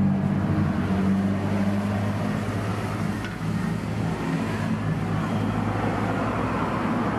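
A motor vehicle engine running steadily, a continuous low hum over road traffic noise.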